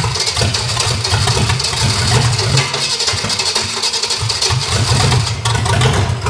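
Freshly assembled Chevrolet small-block V8 on an engine stand running steadily on its first start, kept running to prove the build, then shut off at the very end.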